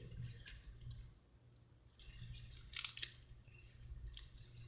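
Faint squishing and crackling of slime being worked by hand, with a few small clicks and pops and a short lull about a second in.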